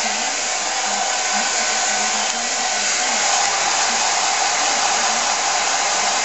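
Hair dryer running steadily at close range, a continuous rushing blow of air, drying a rain-soaked barn owl's feathers.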